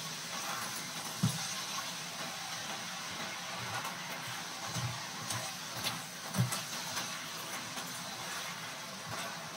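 Chicken feet sizzling in a soy sauce and brown sugar glaze in a frying pan, with a few dull knocks of the spatula against the pan as they are stirred: one about a second in and others around five and six and a half seconds in.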